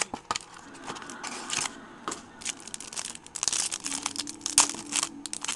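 Foil trading-card pack wrapper being crinkled in the hands: irregular crackling that grows denser about halfway through.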